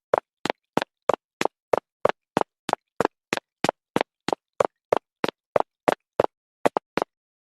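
A steady series of short, sharp knocks, about three a second, that stops about seven seconds in.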